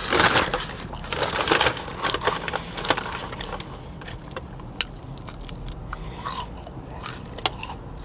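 A person chewing seasoned French fries close to the microphone, crunching. The chewing is loudest in the first three seconds, then goes on more softly with a few sharp mouth clicks.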